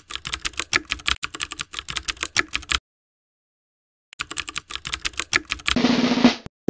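Computer keyboard typing sound effect: rapid, irregular key clicks that stop for about a second and a half midway, then resume. A short, denser sound follows near the end.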